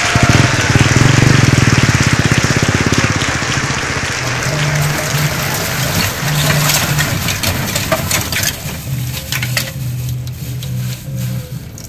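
Tap water running into a stainless steel sink, splashing over plastic bags and scallops in their shells as they are rinsed. The rush of water thins out near the end.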